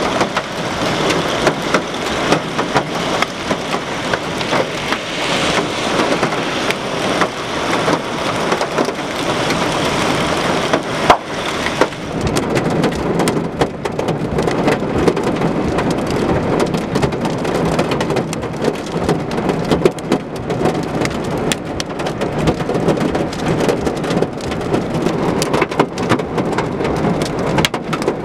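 Heavy rain mixed with small hail pelting grass and wet pavement: a dense, steady patter dotted with sharp ticks of hailstones striking. A single sharp knock comes about eleven seconds in, after which the patter turns harder, with more ticks.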